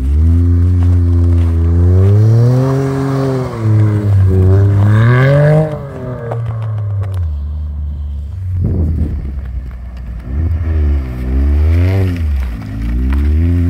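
Toyota GR Corolla's turbocharged three-cylinder engine revving, its pitch rising and falling over and over as the car is driven, with a short rushing noise about nine seconds in.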